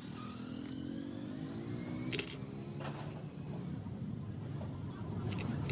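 A single sharp metallic clink of small steel parts about two seconds in, over the background sound of a motor vehicle's engine rising steadily in pitch.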